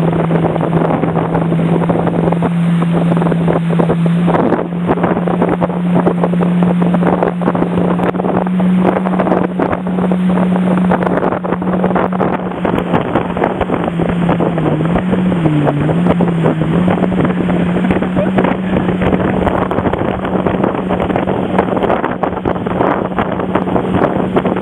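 Towing motorboat's engine running steadily at speed over a loud rush of wind on the microphone and water. The engine note dips and wavers briefly about fifteen seconds in.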